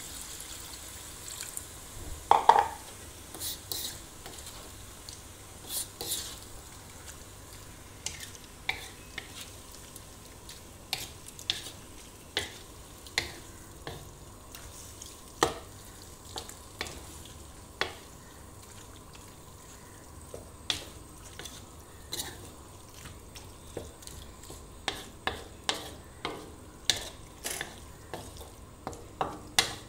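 Spatula stirring and scraping young jackfruit stir-fry in a wok, with irregular clacks against the pan every second or so, the loudest about two and a half seconds in, over a faint sizzle.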